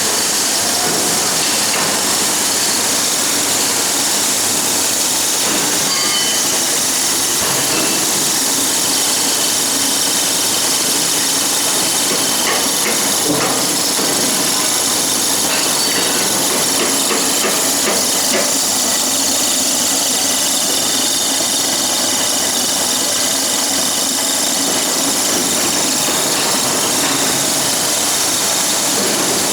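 Dog food extruder running steadily: an even mechanical hiss and drone, with a few faint clicks about halfway through.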